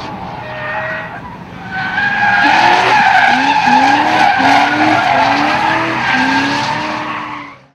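Supercharged BMW E92 M3 V8 revving in a run of short rising pulls while its rear tyres squeal and skid in a smoky drift.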